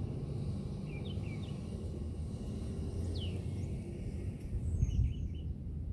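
Outdoor ambience: a steady low rumble with a few short bird chirps about a second in, one falling chirp around the middle, and a dull bump near the end.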